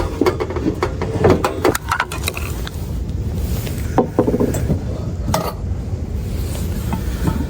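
Cookware being handled: scattered clinks and knocks of pots and utensils, a few sharp ones about a second and a half in, at four seconds and near five and a half seconds, over a steady low rumble.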